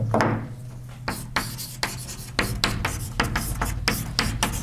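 Writing on a lecture board: a quick series of short scratchy strokes and taps, with a louder knock right at the start.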